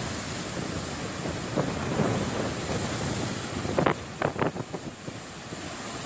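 Surf breaking and washing up a beach, with wind buffeting the microphone. There are a few short, sharp crackles about four seconds in.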